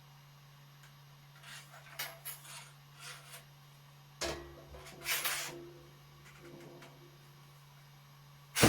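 Handling noises of hard objects: scattered short scrapes and clicks, a knock with a brief ring a little over four seconds in, and a louder knock near the end, over a steady low hum.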